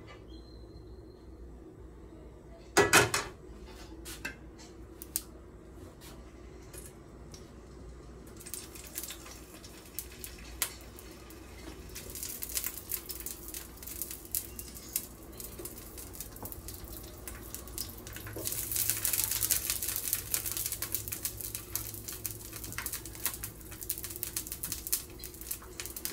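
A metal pan clunks down onto the gas stove grate about three seconds in. Then tongs click as fried fish-cake pieces are laid in hot oil, which starts sizzling and grows louder as more pieces go in.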